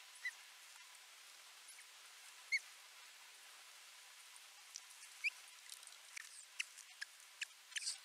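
Osprey calls picked up by a nest-camera microphone: short, sharp chirps over a faint steady hiss, a few spaced-out ones at first, coming faster and closer together in the last couple of seconds.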